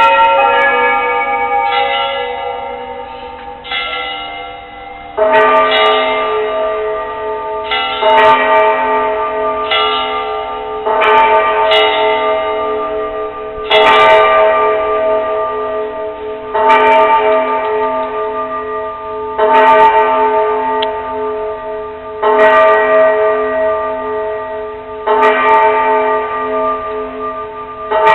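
Bells ringing. A few strikes of differently pitched bells come first. Then a large bell is struck slowly, about one stroke every three seconds, each stroke ringing on and fading before the next.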